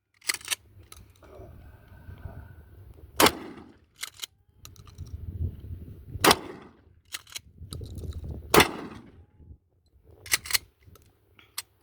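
Gunshots fired one at a time, a few seconds apart, about a dozen sharp reports in all, three of them much louder than the rest.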